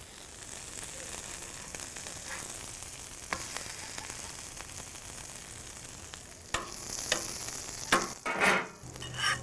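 Plantain slices, onions and bacon frying in oil on a flat-top griddle, a steady sizzle. A metal spatula taps and scrapes the plate a few times, mostly in the last few seconds.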